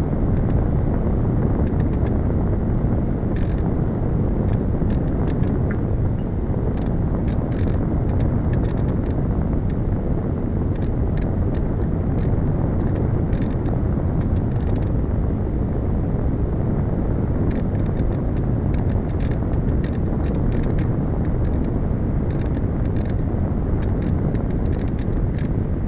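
Steady wind rush over the onboard camera microphone of a Slow Stick RC plane gliding with its motor off, with light crackling ticks scattered through.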